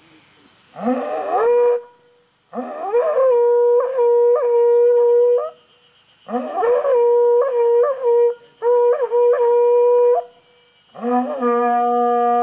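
Horagai (conch shell trumpet) blown in four blasts, a short one and then three long ones. Each slides up from low into a steady note and repeatedly flips up to a higher note and back.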